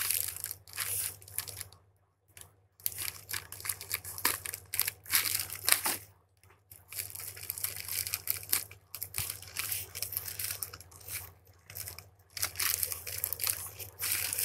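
Plastic courier mailer bag being torn open and crinkled by hand, in irregular rustling bursts with brief pauses.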